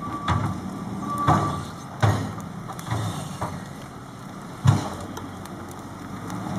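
Front loader's engine running steadily, with several sharp knocks and cracks, the loudest about two-thirds of the way through. There are a couple of short high beeps in the first second and a half.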